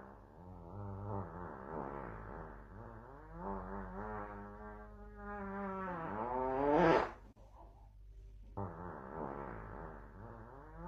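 A long, drawn-out fart sound, wavering in pitch, rising and growing louder near the end, then cutting off suddenly about seven seconds in. After a gap of about a second, another similar drawn-out pitched sound begins.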